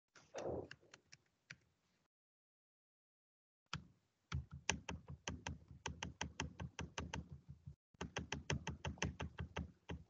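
Faint, fast run of sharp clicks, about five or six a second, like typing on a computer keyboard, heard through a video-call microphone that cuts out between bursts. It starts with a short thump and a few clicks, then from about four seconds in runs steadily with a brief pause near eight seconds.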